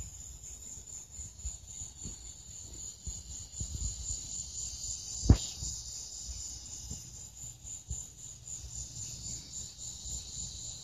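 Evening chorus of insects, a steady high pulsing chirr like crickets, with low rumble under it. A single sharp knock about five seconds in is the loudest sound.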